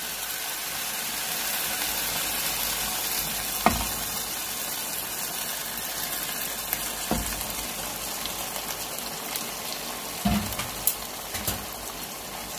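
Beef mince frying in a wok in freshly added oil, a steady sizzle, with a few short knocks against the pan spread through it.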